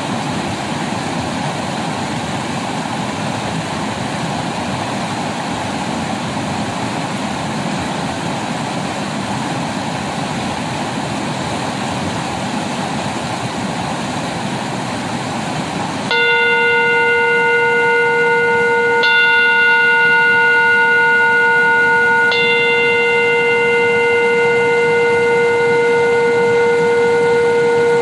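Rushing river water over rocks, which cuts out suddenly about halfway through. A struck meditation bell rings in its place, struck three times about three seconds apart, each stroke ringing on in one long sustained tone.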